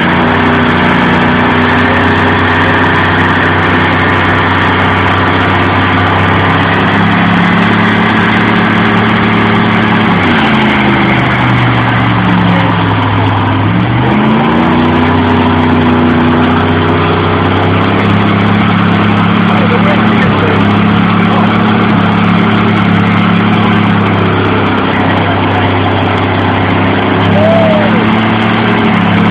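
Chevy 350 V8 truck engine held at high, steady revs during a burnout. The revs dip and climb back twice partway through.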